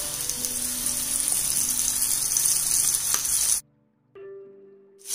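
Rava- and gram-flour-coated whole pomfret sizzling steadily in hot oil on an iron tawa. The sizzle cuts off suddenly about three and a half seconds in, leaving a short silence and then a few faint held music tones.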